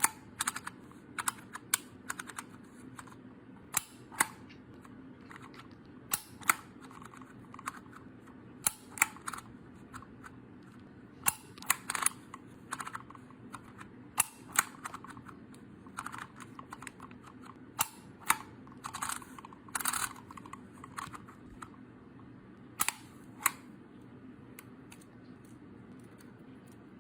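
DYMO handheld embossing label maker being worked by hand: irregular sharp plastic clicks and snaps from its dial and squeeze trigger, thinning out near the end, over a faint steady hum.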